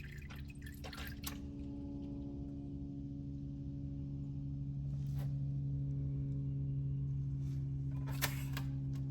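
Used engine oil draining from the sump of an Acura TLX 2.0 into a drain pan, as a steady liquid flow with a low hum that slowly grows louder. A few short clicks or taps sound near the start, about five seconds in and about eight seconds in.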